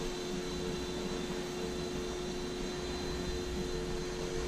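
Microaces Airco DH.2 RC model biplane's electric motor and propeller running steadily in flight, flown slowly close to stall speed. It makes an even drone with a steady hum, one of whose tones wavers in and out.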